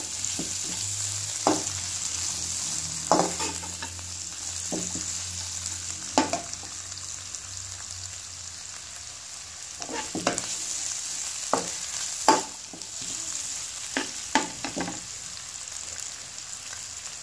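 Carrot and green capsicum strips sizzling in hot oil in a nonstick wok, with a slotted metal spatula scraping against the pan now and then as they are stirred.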